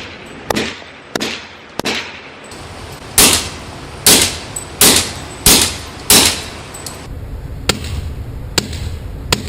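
Suppressed M1911 Government pistol firing shot after shot, one every 0.6 to 0.9 seconds, each a sharp crack with a short tail. The five shots around the middle are the loudest, over a steadier low rumble, and those from about seven seconds in are fainter and sharper.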